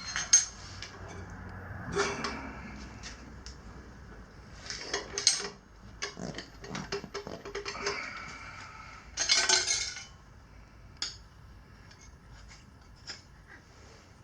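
Metal tire levers clinking and scraping against a motorcycle wheel rim in irregular bursts while a stiff knobby tire bead is worked on by hand.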